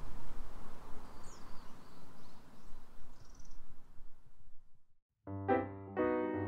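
Steady outdoor background noise with a few faint, high bird chirps, fading out about five seconds in; then solo piano music starts.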